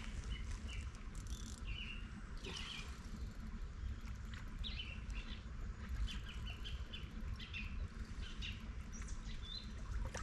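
Small birds chirping and calling on and off, over a steady low rumble.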